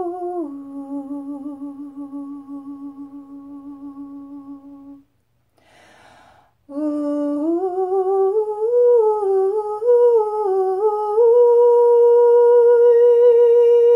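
A woman's voice intoning light language: long wordless held tones with a slight waver. A low note fades out, she takes a breath about six seconds in, and then the pitch climbs in steps to a higher note that she holds steadily.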